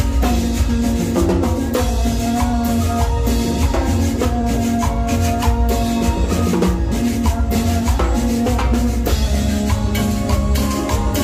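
Live cumbia band playing an instrumental passage: a keyboard melody over steady bass and a regular percussion beat.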